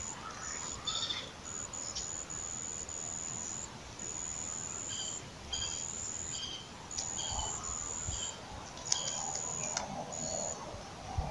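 An insect calling with a high, steady trill that comes in phrases of about half a second to a second and a half, broken by short gaps, with faint chirps underneath.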